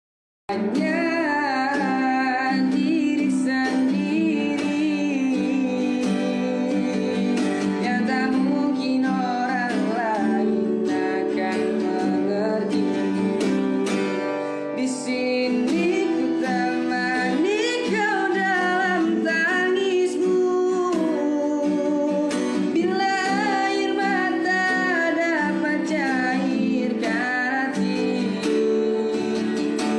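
A young man singing a ballad in Indonesian to an acoustic guitar accompaniment. The music starts suddenly about half a second in after silence.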